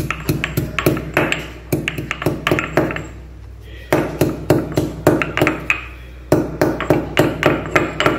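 Stone pestle pounding ginger, curry leaves and green chillies in a mortar: quick knocks about three to four a second, with short pauses about three and six seconds in.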